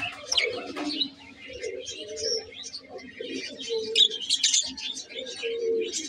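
Budgerigars chirping and warbling in a busy, continuous chatter of quick high notes, with a separate run of short, lower notes underneath.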